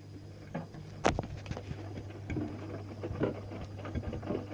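Tumble dryer running, a steady low hum with irregular soft knocks as the load tumbles in the drum.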